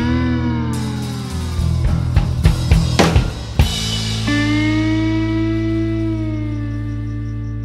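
Background music: drum hits over steady low bass notes and gliding melodic lines, then a long held, slowly bending note from about four seconds in.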